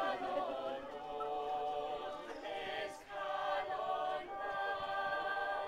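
A small mixed group of young men and women singing a Welsh song together without accompaniment, holding long notes. They break briefly for breath about three seconds in.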